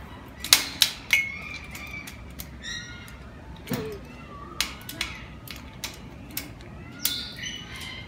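A cockatoo working its beak on the metal wire mesh of its aviary, giving sharp clicks and knocks at irregular intervals, the loudest about half a second in and again around a second. A few brief high calls come in between.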